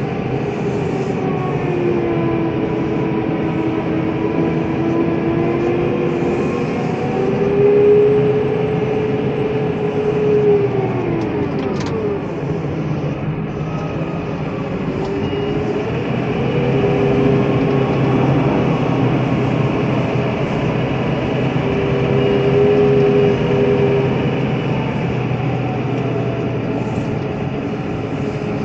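Tractor engine running as it drives a front-mounted snow plough through snow, with a steady rushing noise underneath. The engine note shifts up and down several times as the tractor slows and picks up again, with one clear dip and recovery about halfway through.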